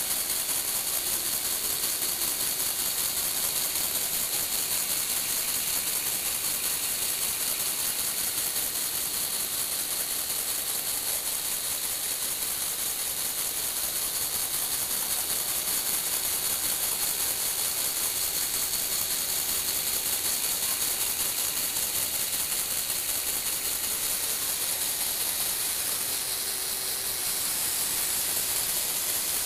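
Lego Technic electric motors and plastic gears whirring steadily with a fast, fine ticking as they tilt a platform back and forth.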